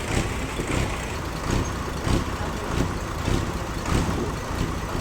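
Sawmill machinery running, a steady mechanical noise that swells in a regular pulse about every two-thirds of a second.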